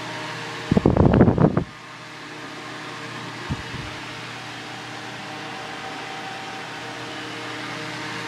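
Holmes Blizzard high-velocity pedestal fan running on high with oscillation on: a steady whir of air and blades over a faint motor hum. About a second in, its airstream buffets the microphone in a short low rumbling gust as the head sweeps past.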